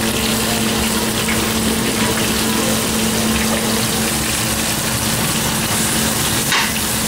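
Onion, garlic and tomato sautéing in hot oil in a steel wok: a steady sizzle over a low, even hum that stops near the end.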